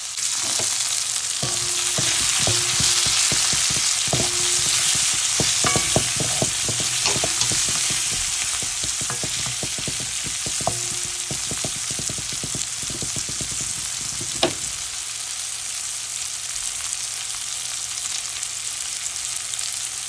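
Shallots, garlic, whole spices, curry leaves and dried red chillies sizzling in hot oil in a pan, the sizzle starting up sharply as they are sautéed. For the first fifteen seconds or so a spoon knocks and scrapes against the pan as they are stirred, and after that only the steady sizzle remains.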